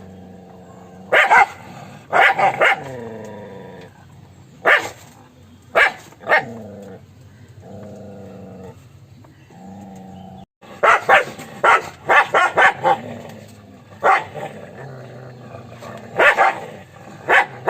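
Dog barking in short sharp barks, singly and in quick runs, with a fast string of barks a little past the middle. Between the barks there are quieter steady tones.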